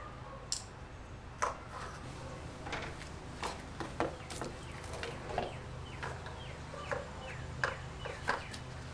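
Scattered small clicks and knocks of hands handling plastic wiring, a connector and trim in a car's engine bay, with faint bird chirps in the background.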